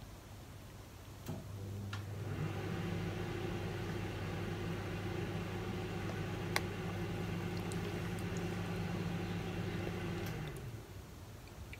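A steady electric motor hum from an appliance. It starts with a click about a second in, builds up over the next second, runs evenly, then winds down in pitch and stops near the end. A single light click of a plastic spoon against the plastic container comes midway.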